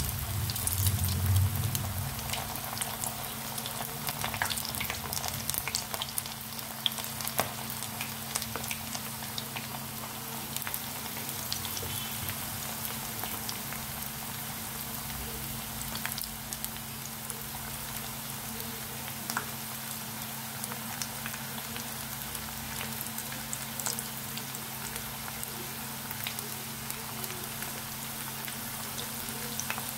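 Masala-battered chicken wing pieces deep-frying in hot oil over medium heat: a steady sizzle with scattered crackles and pops.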